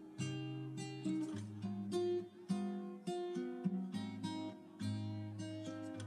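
Background music on acoustic guitar: plucked notes and chords, a new one struck about twice a second, each ringing out and fading.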